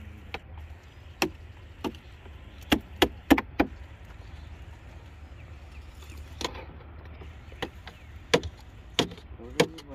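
About a dozen sharp knocks or taps at an irregular pace, several in quick succession around three seconds in, over a low steady rumble.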